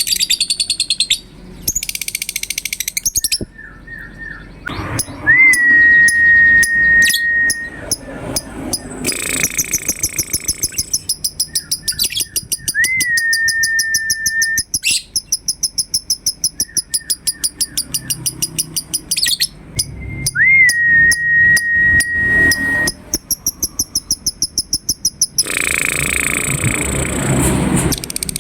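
Lovebird ngekek: long runs of rapid, high, chattering trills repeated over and over. Three times they are interrupted by a long steady whistle that flicks upward at its start.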